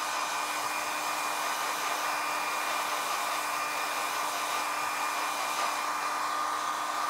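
Handheld hairdryer running steadily to dry freshly applied leather paint: an even rush of air with a constant motor hum, unchanging in pitch and level.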